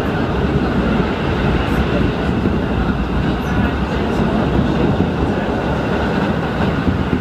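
Steady running noise of a train in motion, heard from inside the carriage: a continuous low rumble with no distinct clacks.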